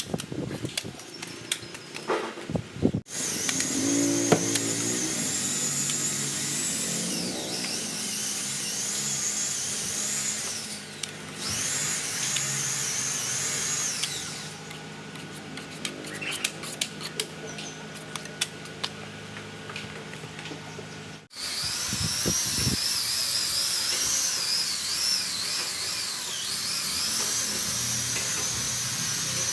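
Power sander running at high speed on body filler, a high whine that wavers in pitch as it is pressed and moved over the panel. The sound changes abruptly about three seconds in and again about two-thirds of the way through, with a quieter stretch before the second change.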